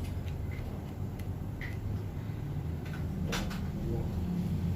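Steady low room hum while a patient's scapula is worked on in a chiropractic adjustment, with a few faint clicks and one sharper click a little over three seconds in.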